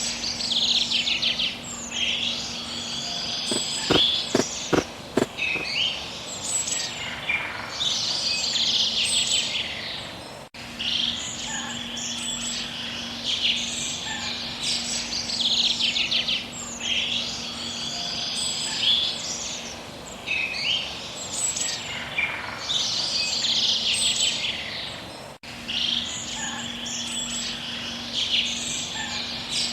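Birds chirping and calling in repeated trilling phrases, over a faint steady hum, with a few sharp clicks about four to five seconds in.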